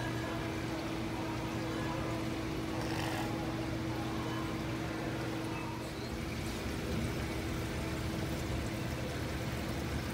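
Aquarium tanks' filters and pumps running: a steady trickle of water over a constant low hum.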